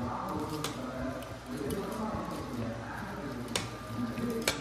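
A metal spoon stirring thick batter in a stainless steel bowl, with a few sharp clinks of the spoon against the bowl, the loudest near the end, over a background voice.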